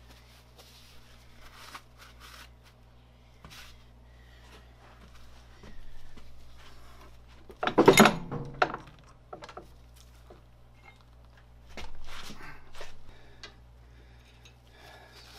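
Hands working on a small CNC mill's table and Y-axis: rag wiping, scattered knocks and scrapes, and a loud clatter of metal parts about halfway through. Near the end, more scraping and clinking as the Y-axis ball screw is turned out of its ball nut.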